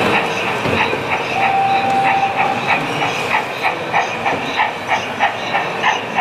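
Model train running on track, its wheels clicking over the rail joints at an even pace of about three clicks a second. A brief steady tone sounds about a second and a half in.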